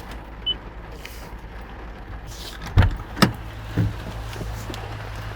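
Knocks and thumps inside a car, then a steady low motor hum from about three seconds in, over a constant low rumble.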